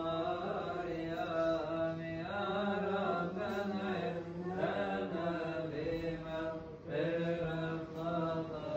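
Coptic Orthodox liturgical chant: slow, held sung notes that slide from pitch to pitch without a break.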